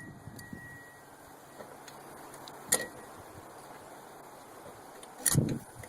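A seat safety switch being fitted under a riding mower seat: a sharp click about three seconds in, then a louder knock near the end, over a low background hiss.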